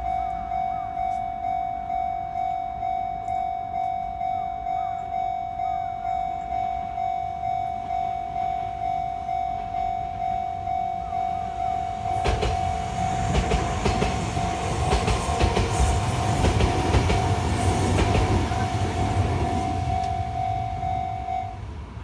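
Japanese level-crossing alarm ringing steadily, a single pulsing tone at about two dings a second. About twelve seconds in a Kintetsu Minami-Osaka Line train passes over the crossing with a loud rush of wheels on rail and clicking joints, fading near the end; the alarm stops just before the end as the train clears.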